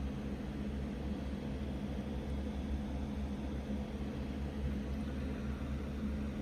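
Steady background hum and hiss with no distinct sounds: a low, even machine-like drone such as a fan or electrical hum.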